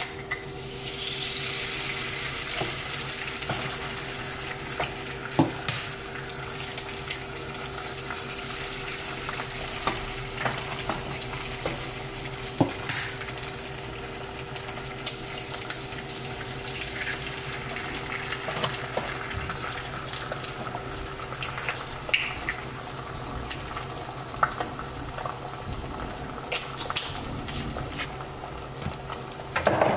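Eggs frying in a nonstick pan, a steady sizzle with scattered sharp taps of shells and pan. A steady hum runs underneath.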